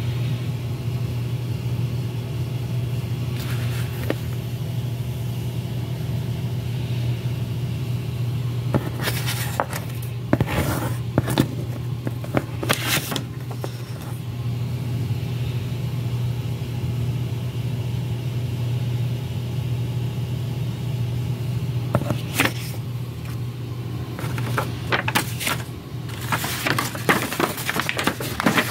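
Paper rustling and crinkling as gift paper and a paper note are handled, in bursts from about nine seconds in and again near the end, over a steady low machine hum.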